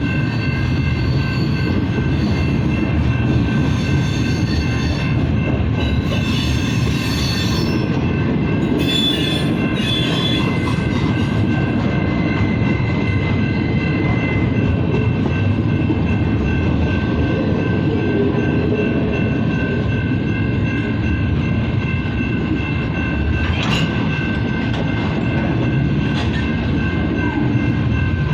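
BNSF double-stack freight train rolling past: a steady, loud low rumble of wheels on rail, with several steady high-pitched squealing tones from the wheels throughout.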